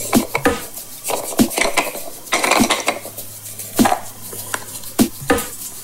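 Painted wooden nesting egg being twisted apart and handled: a run of light knocks and clicks, with a brief scraping rub of the two halves a little past the middle.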